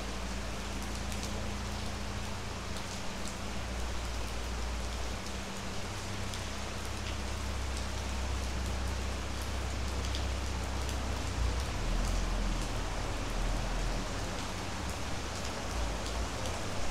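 Steady rain falling, an even hiss with scattered drips, over a low, uneven rumble.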